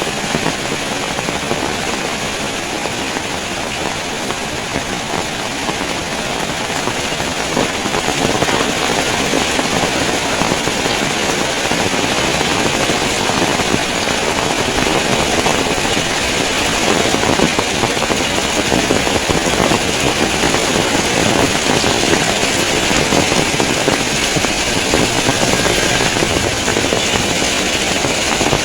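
Heavy rain falling in a steady, loud rush, with strong wind; it grows a little louder about a quarter of the way through.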